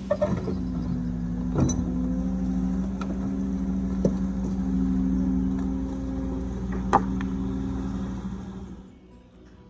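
Cat 308 mini excavator's diesel engine running steadily under hydraulic load while digging, with several sharp knocks from the bucket working in the sand and rock, the loudest about seven seconds in. The sound drops away near the end.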